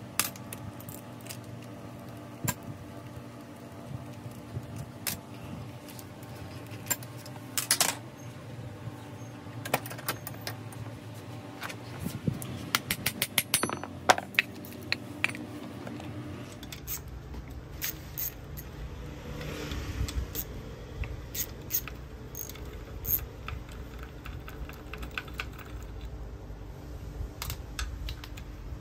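Scattered metallic clinks and knocks of a heavy 24V starter motor being worked on with hand tools: a driver on its housing screws and metal parts handled. About halfway through there is a quick run of clicks, roughly ten a second. A low steady hum runs underneath.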